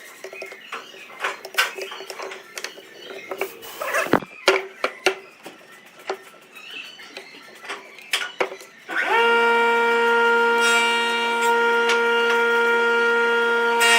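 Scattered clicks and knocks of wood and tool handling, then about nine seconds in an electric wood lathe motor switches on, its pitch rising briefly as it spins up and then holding as a steady, loud whining hum.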